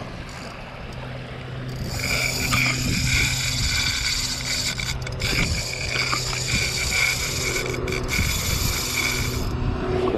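Spinning fishing reel whirring right beside the microphone while playing a hooked yellowtail kingfish, a steady high mechanical whir that starts about two seconds in and stops near the end.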